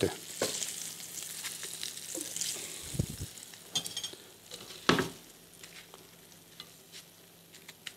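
Hot olive oil sizzling in a frying pan as fried sardines are lifted out with metal tongs and laid in an earthenware dish, with a few clicks and knocks of the tongs, the loudest about five seconds in. The sizzle dies down over the last few seconds.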